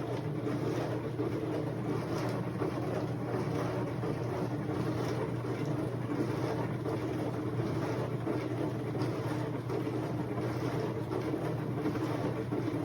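Steady mechanical hum with a low, even rushing noise, unchanging throughout.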